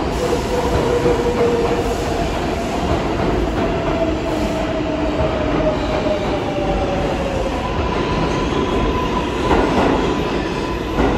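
R142A subway train pulling along the platform and slowing to a stop, a steady rumble of wheels on rail with a faint whine that drifts and falls in pitch as it brakes.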